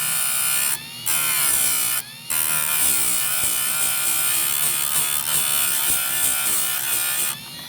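Electric chainsaw chain sharpener grinding the teeth of a Stihl 025's chain: a motor's whine mixed with the rasp of the grinding wheel on steel, breaking off twice briefly and stopping near the end, leaving a quieter hum.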